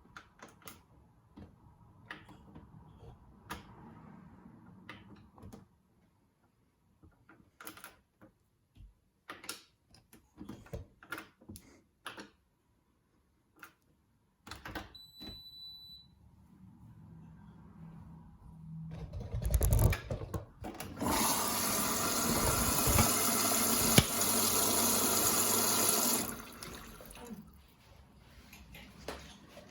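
Indesit IWD61450 washing machine starting its service mode: scattered clicks, a short high beep about 15 seconds in, then water rushing in through the inlet valve, loud and steady for about seven seconds before dropping to a faint trickle near the end.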